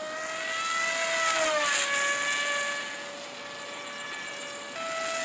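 Radio-controlled model plane's motor running in flight, a steady high hum whose pitch drops about a second and a half in as it passes, then steps up and gets louder near the end.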